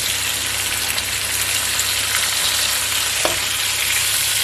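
Onions sizzling in hot oil in a frying pan while being stirred, a steady hiss, with one sharp knock of the stirring utensil against the pan about three seconds in.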